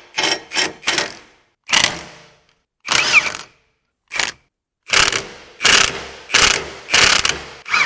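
Hand ratchet wrench working on the hub bearing bolts of a 2007 Ford Expedition's rear hub: about ten short bursts of ratchet clicking at uneven intervals, one back-swing after another as the tight bolts are loosened.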